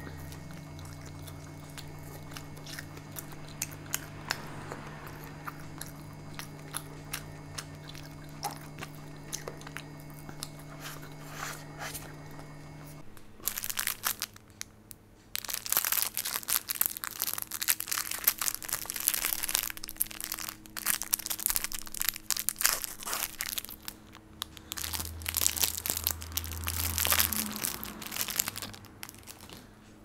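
Mukbang eating sounds close to the microphone. For the first half there are faint clicks over a steady hum; from about halfway in come loud, dense crunching and crinkling sounds from the food being eaten and handled.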